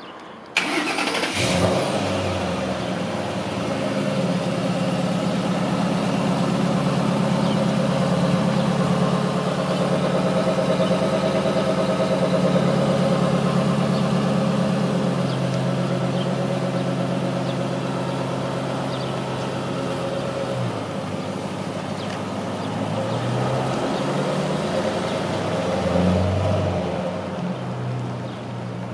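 Ford 4.6-litre three-valve V8 in a 1951 Ford F1 pickup starting about half a second in and running at a raised idle. It settles to a lower idle around twenty seconds in, then revs as the truck pulls away near the end.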